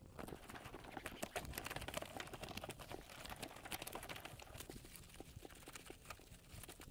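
Wet cloth scrubbing soapy foam over a motorcycle's fuel tank and handlebar grip, a dense run of small crackles and squelches that keeps up throughout.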